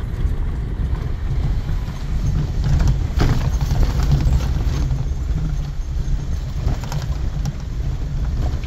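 Car's in-cabin road rumble while driving over a rough, broken mountain road, with a few sharp knocks and rattles from the uneven surface.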